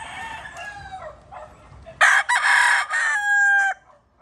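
Gamecocks crowing: a fainter crow in the first second, then a loud, close crow about two seconds in that lasts nearly two seconds and ends on a long held, slightly falling note.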